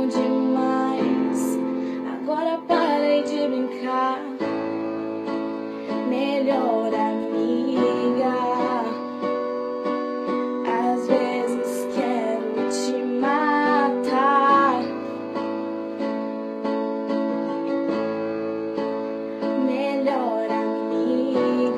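A pop song with plucked guitar accompaniment and a sung or vocalised melody line, with no clear lyrics.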